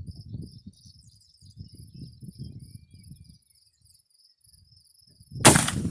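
Crickets chirping steadily, with patches of low rumbling, then near the end a single loud rifle shot from an 1871/84 Mauser in 11mm Mauser, ringing on briefly after the crack.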